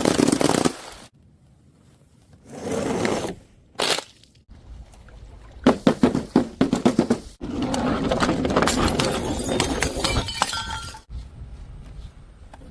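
Glass breaking and things being crushed in a string of short clips with abrupt cuts between them. The sounds include a sharp impact, rapid runs of cracking and a longer crunching stretch.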